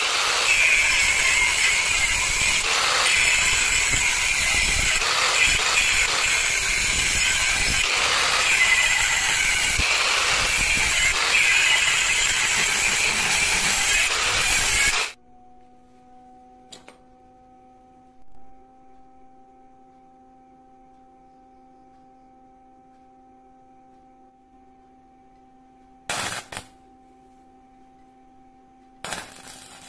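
Angle grinder disc cutting through a steel bar across the weld beads, a steady high-pitched grinding noise for about fifteen seconds that stops suddenly. After it, only a faint steady hum, broken near the end by two short loud bursts.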